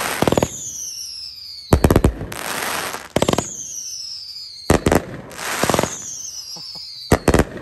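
Report-heavy 'Tannerite' consumer firework cake firing shot after shot, a pretty loud audible-effect cake. Each shot has a falling whistle, then a cluster of sharp bangs and a crackling spray, about every second and a half.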